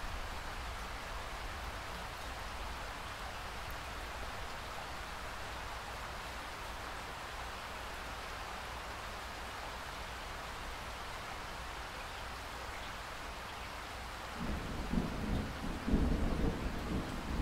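Steady rainfall. Near the end a low thunder rumble rolls in and grows louder.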